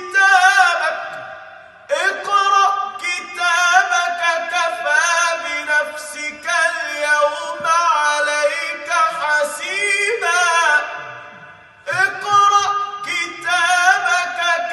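A man's solo Quran recitation in a melodic tajweed style, long drawn-out notes with ornamented pitch turns, in three phrases broken by short breath pauses about two seconds in and near the end.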